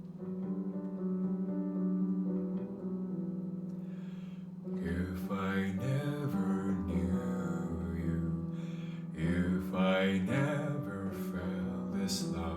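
Instrumental intro of a pop ballad: held chords for the first few seconds, then a fuller arrangement with a beat coming in about five seconds in.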